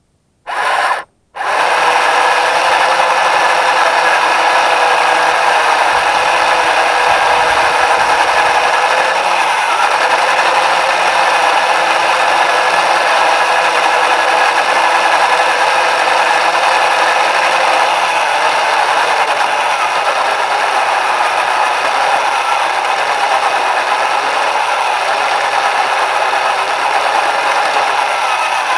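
Small electric drive motors and gearing of a tracked FPV rover running, picked up close by its onboard camera. It gives one short burst under a second in, stops briefly, then runs on as a steady whine.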